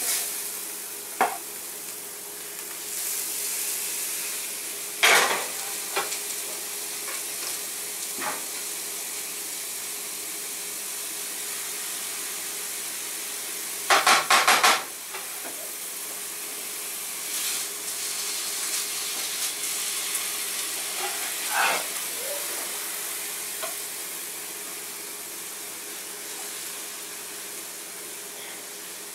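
Ground venison sizzling as it browns in a hot skillet, a steady frying hiss. A utensil scrapes and knocks against the pan now and then as the meat is broken up, with a quick run of four or five knocks about halfway through.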